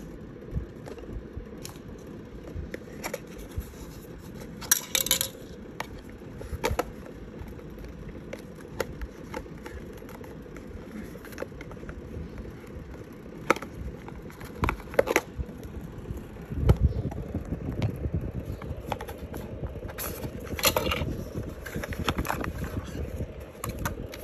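Handling noises of unboxing earbuds: scattered clicks, taps and scrapes of a plastic charging case and white cardboard box and inserts, with a few short rustles and a heavier knock about two-thirds of the way in, over a steady low hum.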